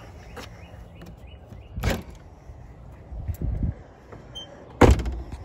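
A 1999 Chevrolet Cavalier's driver door being opened and shut: a sharp clack about two seconds in, a few duller knocks, then the door slammed shut near the end, the loudest sound.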